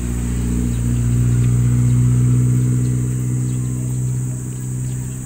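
Motor vehicle engine running close by: a steady low drone that swells about two seconds in and then eases off.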